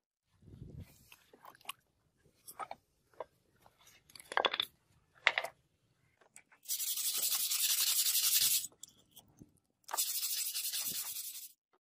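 A brush scrubbing rust off a wet, rust-pitted steel sword blade fresh from a rust-remover soak, in two loud scratchy bouts: one about seven seconds in, another about ten seconds in. Before them come a few light knocks and scrapes as the blade is handled.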